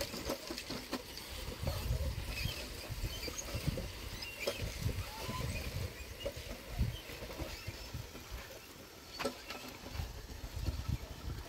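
A knife cutting a peeled vegetable by hand, with scattered small clicks and cuts, over a low, uneven rumble.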